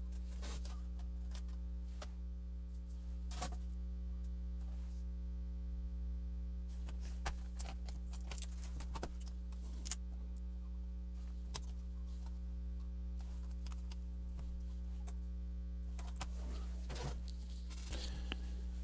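Steady electrical mains hum, with scattered light clicks and taps from a plastic Acer C720 Chromebook's case and internal parts being handled, busier near the end.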